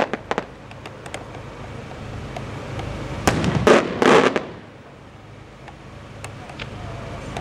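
Aerial firework shells from St. Mary Fireworks of Malta bursting. A few sharp cracks come at the start, then a cluster of loud bangs about three to four seconds in, with a low rumble and a few faint scattered cracks between and after.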